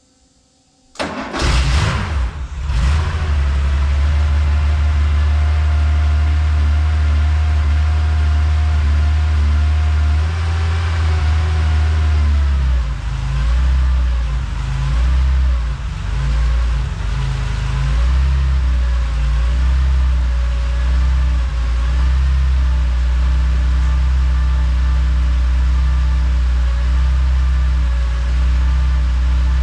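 1973½ Porsche 911T's air-cooled 2.4-litre flat-six started cold: it cranks and catches about a second in with a few ragged firing strokes, then runs at a steady idle. The idle wavers in pitch for a few seconds around the middle, then steadies again.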